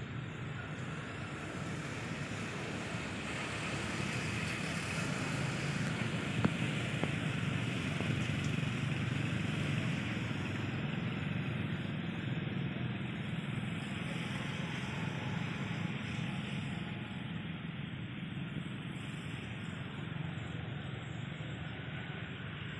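Distant motor vehicle on a road: a steady low rumble that swells over the first ten seconds or so and slowly fades, with a single faint tick about six seconds in.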